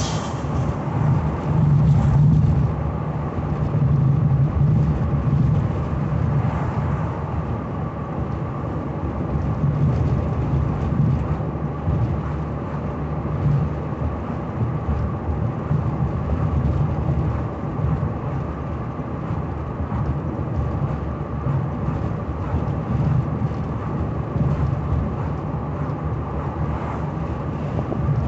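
1985 Cadillac Cimarron heard from inside the cabin while cruising: a steady low engine and road rumble that swells and eases slightly with the driving.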